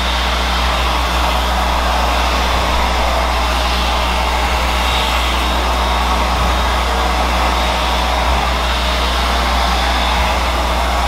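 Hand-held hair dryer running steadily, blowing on a fringe of hair.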